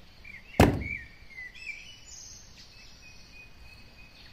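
A single sharp knock about half a second in, a hard plastic toy dinosaur being put down among the others, then birds chirping in the background over a faint steady high-pitched whine.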